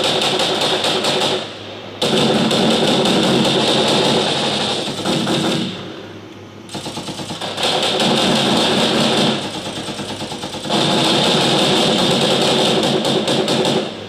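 Several machine-gun sound effects layered and played back together: rapid, overlapping bursts of gunfire forming a dense wall of shots. The firing thins out briefly about a second and a half in, around six seconds in, and again near ten seconds.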